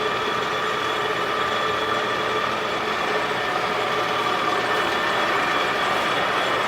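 Colchester lathe running steadily: a constant machine whine with several steady tones.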